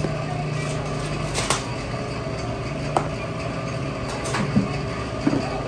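Hinged cast-iron egg-cake mould lid being closed, with a few sharp metallic clicks and knocks spread across the few seconds, over a steady low hum.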